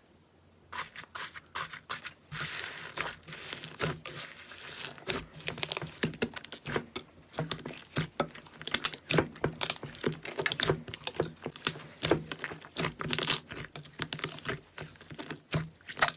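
Slime being squeezed and pressed by hand close to the microphone: a dense, irregular run of sticky crackles, pops and clicks, starting under a second in after a short quiet.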